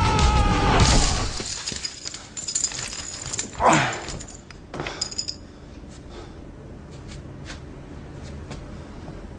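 Film fight-scene soundtrack: music dies away in the first second or so, then scattered clinks and clatters and a brief falling whoosh about three and a half seconds in, before it settles to a low hush with occasional light ticks.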